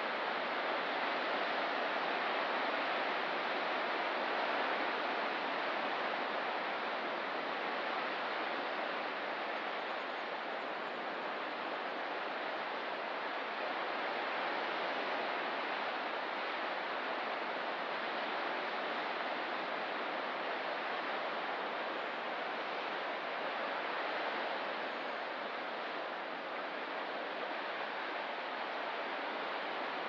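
Ocean surf: a steady, even wash of waves, with no single break standing out.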